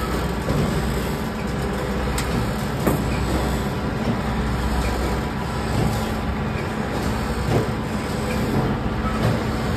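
Soap plodder (screw extruder) running steadily as it extrudes a continuous bar of soap: an even, low machine drone with a steady hum and a few light clicks.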